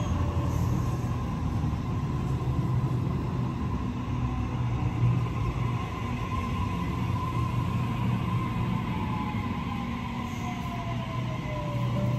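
Sydney Trains double-deck electric train pulling into the platform and slowing to a stop, with a steady low hum and rumble. Over the last few seconds a whine falls steadily in pitch as the train slows.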